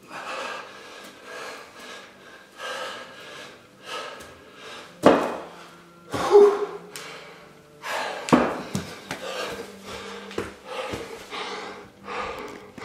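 A man breathing hard and rhythmically while exerting himself through a bodyweight wall exercise, one breath about every second and a bit. Three louder thumps near the middle as his hands and feet come down on the floor.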